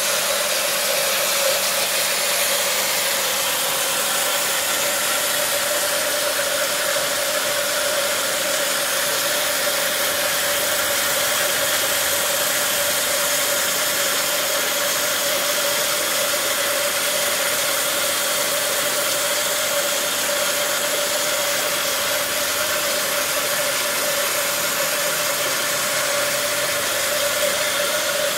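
Electric water pump of a DIY microbubble generator running steadily, a constant hum with a hiss of water and air forced through the venturi nozzle to make microbubbles.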